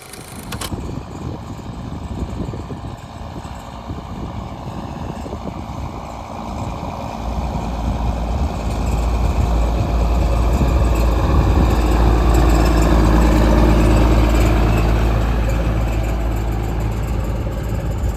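Engine of harvest machinery running steadily. It grows louder from about seven seconds in, with a deep rumble that is strongest in the second half.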